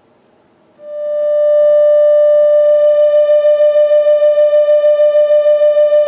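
Computer-synthesised tone near 600 Hz from a browser tone generator mixing sine and some sawtooth: two nearly identical notes sounding together. It swells in over about a second, then holds loud with a fast pulsing beat about four or five times a second, the interference of the two close pitches.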